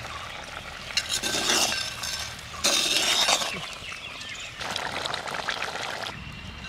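Metal spatula stirring a steaming chicken-gizzard curry in a clay pot, scraping and clinking against the earthenware in three spells, the loudest about three seconds in.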